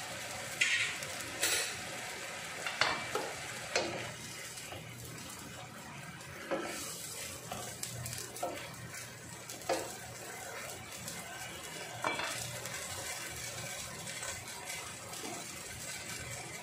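A wooden spoon stirring risotto rice and leeks simmering in a pan on a gas burner: irregular scrapes and knocks of the spoon against the pan over a steady simmering hiss.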